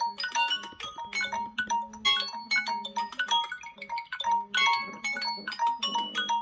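Samsung Galaxy devices ringing their timer and alarm tones at the same time: several marimba-like chime melodies overlap over a repeating beep about two to three times a second.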